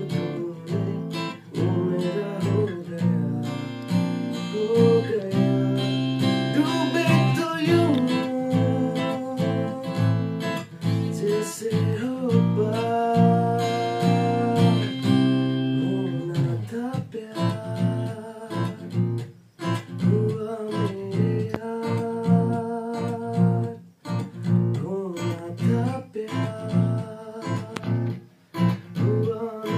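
Music with strummed acoustic guitar and a singing voice.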